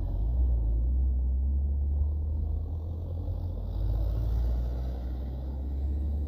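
A truck's diesel engine labouring slowly up a steep climb in low gear, a steady low drone.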